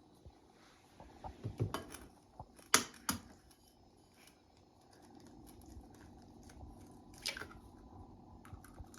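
A few sharp taps and clicks of an egg being cracked and handled over a bowl, the loudest two close together about three seconds in.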